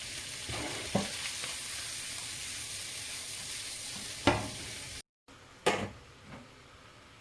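Food sizzling as it is stir-fried in a hot wok, with a utensil knocking against the pan twice. About five seconds in the sizzling cuts off abruptly, and one more knock follows in a quieter stretch.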